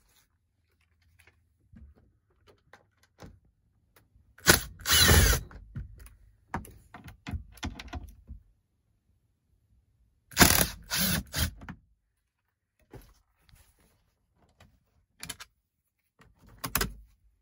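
Tool noise from undoing dash panel screws: two loud bursts about a second long, one about a quarter of the way in and one past the middle, the second in three short pulses. Lighter clicks and knocks come between them.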